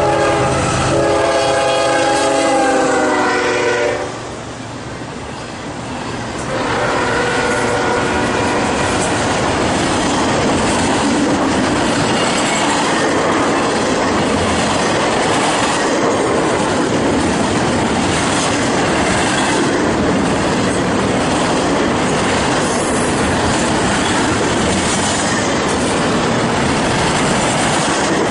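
A CSX freight locomotive's air horn sounds a multi-note chord as it passes, the pitch dropping at the end of the blast, followed a few seconds later by a short second blast. Then comes the steady rumble and clickety-clack of double-stack intermodal container cars rolling past.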